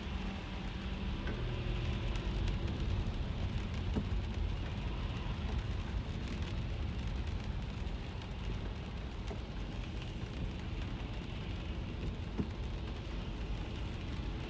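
Rain falling on a car's roof and windshield, heard from inside the cabin, with scattered sharp drop ticks over the steady low rumble of the car driving.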